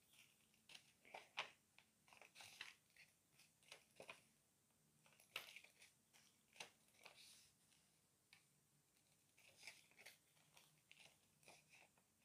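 Faint crinkling and rustling of small plastic resealable bags of diamond-painting drills being handled, with scattered short clicks.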